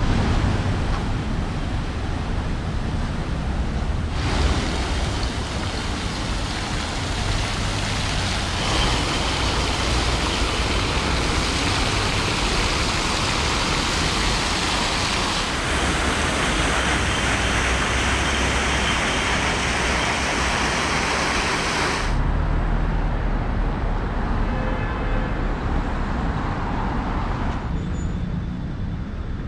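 City street traffic: a steady wash of passing cars and road noise. Its loudness and tone shift abruptly several times.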